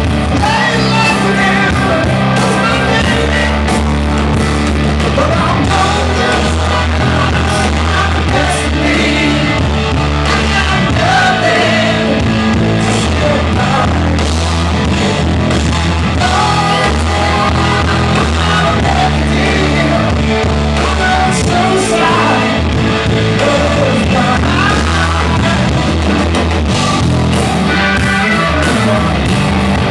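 Live rock band playing a song loudly, with electric guitar, bass and drums, and singing at times.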